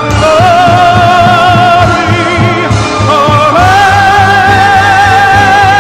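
A song: a high singing voice holds long notes with vibrato, the second one starting about three and a half seconds in, over a steady bass beat.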